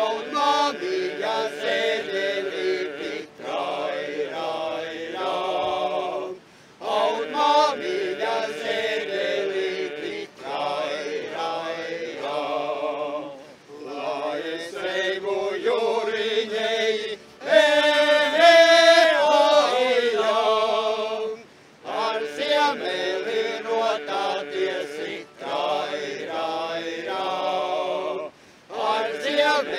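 Latvian men's folk ensemble singing together in phrases, with short breath pauses every few seconds. A louder, higher phrase comes a little past the middle.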